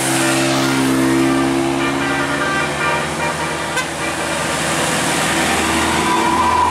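Bus 'telolet' musical air horn sounding steady held notes over loud engine and road noise, for the first couple of seconds and again near the end, where a higher note joins in.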